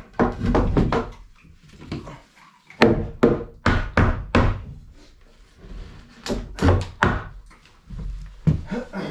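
Hammer striking nails into a wooden 2x4 frame, in two runs of sharp knocks, about two or three strikes a second.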